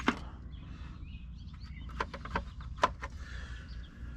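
A few sharp metallic clicks and clinks of a hand wrench being fitted to the bolts of a vehicle's tie-rod adjuster clamps, with faint bird chirps behind.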